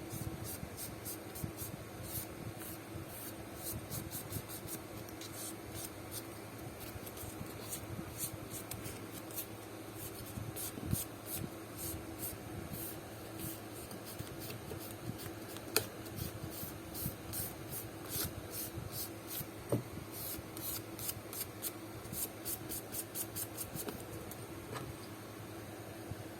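Hand sanding of the dried filler on a shoe's toe: quick back-and-forth scratchy rubbing strokes in runs, with a short pause or two and a couple of light knocks.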